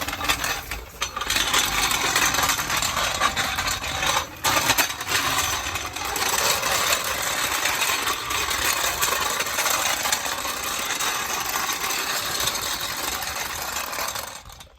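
Metal gear rattling and clattering as it is moved about, with a brief pause about four seconds in.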